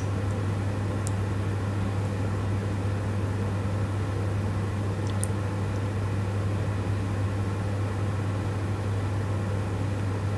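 Steady low hum with an even hiss, like a fan or appliance running, with two faint ticks.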